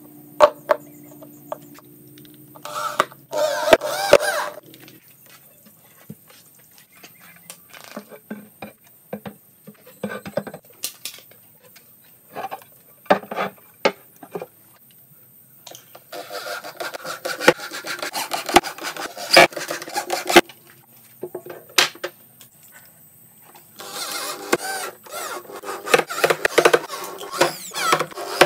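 Handling and assembly noise on a loudspeaker cabinet: scattered knocks and clicks as parts are set in and fitted, with three longer stretches of scraping and rubbing.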